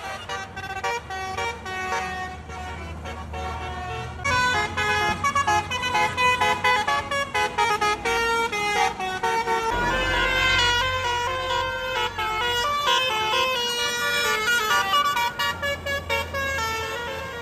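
A bus's 'telolet' musical air horn playing a quick melody of stepped notes, several horn tones sounding together, getting fuller and louder about four seconds in and again about ten seconds in.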